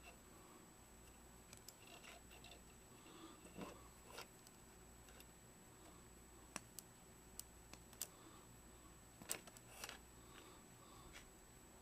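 Wire cutters snipping the leads off a small circuit board from an electronic flash: scattered sharp snips over faint handling noise, coming more often in the second half.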